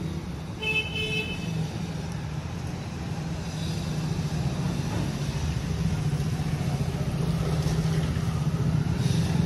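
A motor vehicle's engine running steadily with a low hum that grows a little louder, with a brief pitched beep about a second in.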